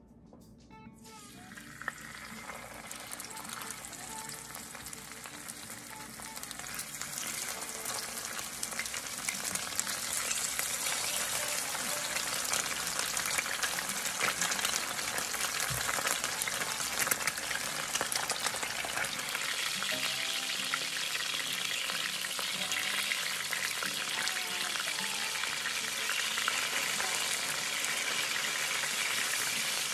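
Whole white perch frying in hot sunflower oil in a cast-iron skillet. A sizzle full of fine crackles starts about a second in as the fish go into the oil, grows louder over the next ten seconds or so, then holds steady.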